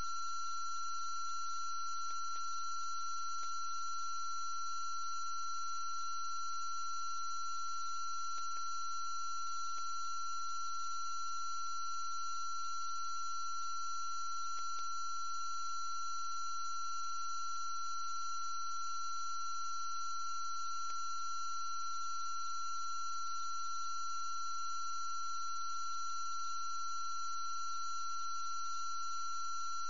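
A steady, unchanging electronic tone, with fainter higher tones above it and a faint low hum beneath. A few faint ticks come and go.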